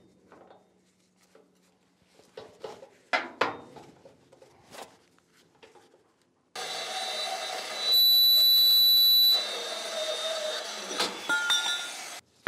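Portable band saw cutting through steel square tubing. It starts suddenly about six and a half seconds in, runs with a high whine that is loudest for a second or so mid-cut, and cuts off abruptly just before the end. A few light knocks from handling the steel come before it.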